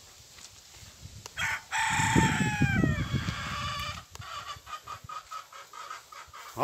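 A rooster crows once, about a second and a half in, and the call falls away at its end. A quick run of short, repeated clucks follows.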